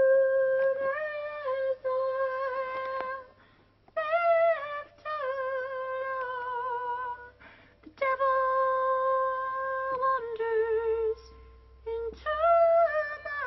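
A woman singing in a high voice: a series of long held notes with a slight waver, each phrase one and a half to three seconds long, with short breaks between them.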